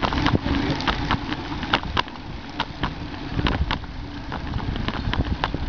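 Riding noise from a handlebar-mounted camera on a moving road bicycle: a steady low rumble of wind and road vibration, broken by frequent irregular clicks and rattles.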